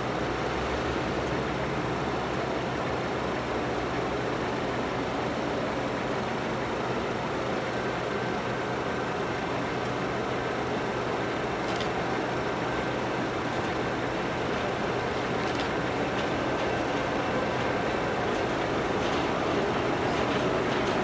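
A train running with a steady rumble of rail and engine noise that grows a little louder near the end.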